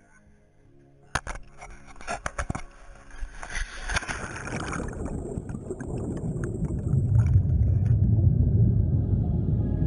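A few sharp knocks, then a rush of water and bubbles as the camera in its waterproof housing goes under the lake's surface, settling into a loud, steady low underwater rumble.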